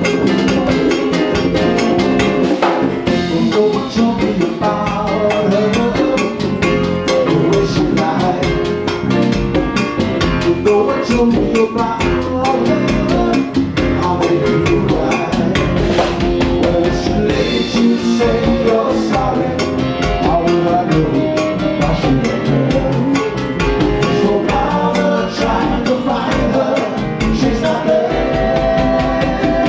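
Latin band playing live, with drum kit and hand percussion keeping a steady salsa beat under pitched instruments.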